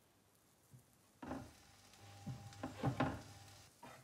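Raw beef mince burger patties laid into a hot oiled non-stick frying pan, starting to sizzle on contact. One goes in with a sudden sizzle about a second in, then a louder cluster of sizzling and knocks against the pan around three seconds in as the next is pressed down.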